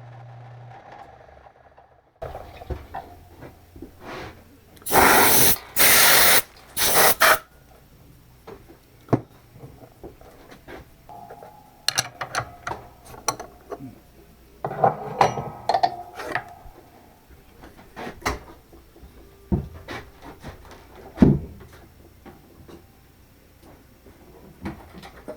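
Workshop tool handling on a plastic part: scattered clicks, knocks and scraping, with three short, loud hissing bursts about five to seven seconds in.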